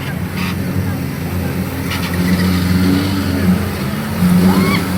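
Off-road 4x4 vehicle's engine running and revving, its pitch shifting and getting louder about four seconds in.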